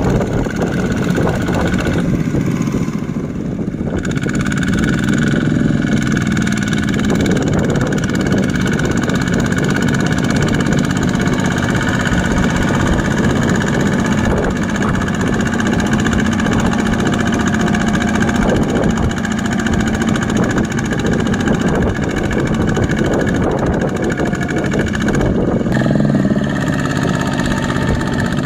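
Single-cylinder diesel engine of a Kubota two-wheel walking tractor running steadily under load as it pulls a loaded rice trailer through mud, with a few brief rises in engine speed.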